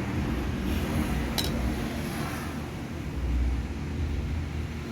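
A steady low rumble with a single light metallic clink about a second and a half in, like a tool or brake part being handled.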